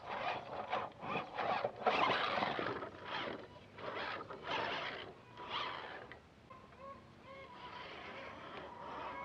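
RC Clodbuster crawler driving, its tyres, fitted with soft silicone inserts, scraping and crunching over the ground in uneven bursts for about six seconds, then going quieter.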